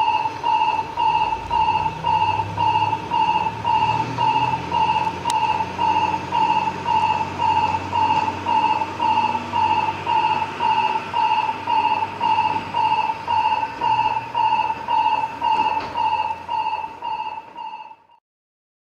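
Railway station platform train-approach warning alarm (警報音) at Ōmi Station: an electronic beep repeating about twice a second, signalling that a train is approaching. A low rumble runs underneath in the middle, and the alarm cuts off suddenly near the end.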